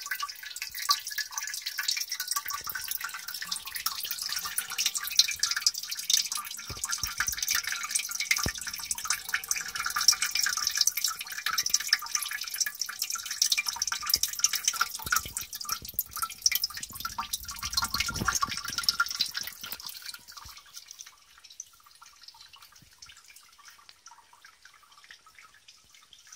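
Water bubbling and dripping in a small glass aquarium: a dense, steady patter of tiny splashes and bursting bubbles. It drops much quieter about twenty seconds in.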